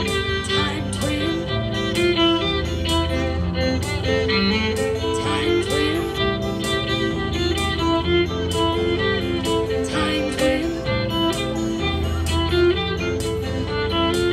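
Live band playing: a fiddle over a strummed acoustic guitar and electric guitar, with a steady strummed rhythm.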